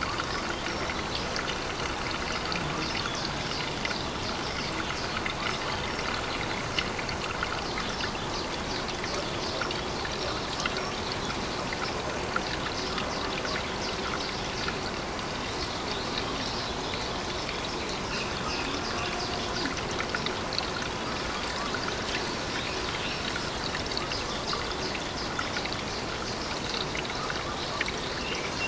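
Water trickling and running steadily into a pond, with many small drips and splashes.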